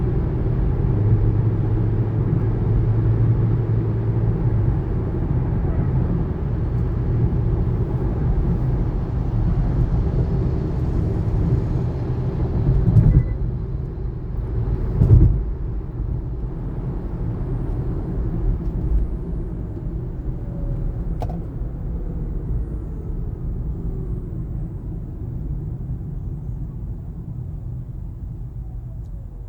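Road and tyre rumble inside a 2019 Kia Niro as it drives and then slows, with two brief thumps about halfway through. Near the end a faint whine falls in pitch as the car slows, the high-frequency noise the owner hears when braking.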